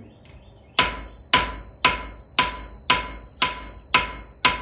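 Blacksmith's hand hammer striking a hot iron bar on an anvil, drawing it out to a taper. Eight evenly spaced blows about two a second start about a second in, each followed by a brief metallic ring from the anvil.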